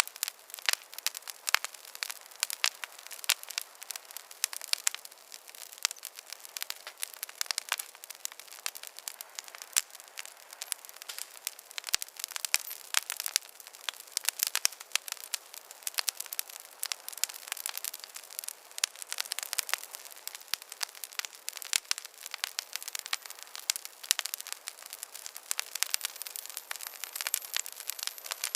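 Campfire crackling: a dense, irregular run of sharp pops and snaps, several a second, over a soft steady hiss of burning wood, with no low rumble.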